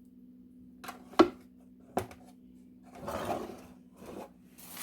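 Spoon and container handling while jerk seasoning is spooned onto raw chicken: two sharp knocks, the loudest about a second in and a smaller one a second later, then scraping and rubbing near the end.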